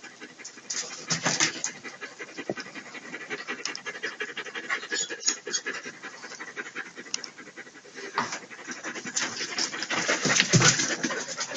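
Heavy breathing and crackling scrapes of clothing and boots against rock as cavers clamber through a narrow cave passage, in uneven swells, with a dull knock near the end.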